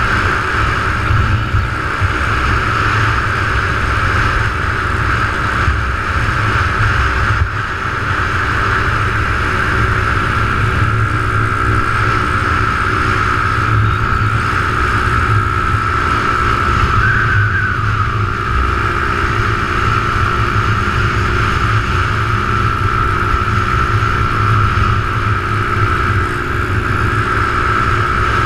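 Small motorbike engine running steadily at cruising speed, with a constant high-pitched whine, heard from a camera mounted on the bike amid heavy wind rumble.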